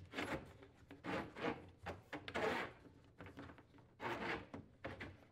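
Dishwasher drain hose being pulled through the hole in a sink cabinet wall, rubbing and scraping against the cabinet in several short, uneven strokes.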